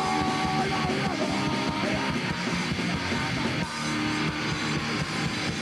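Punk rock band playing live: distorted electric guitars over bass and drums, in an instrumental stretch between sung lines.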